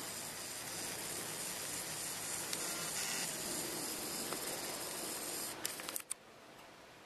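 Steady hiss of background noise, with a few sharp clicks about five and a half seconds in, after which the hiss suddenly drops away.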